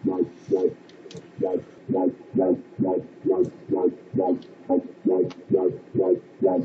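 Dubstep wobble bass from the Toxic Biohazard synth: a low synth note pulsing in a steady rhythm, about two wobbles a second.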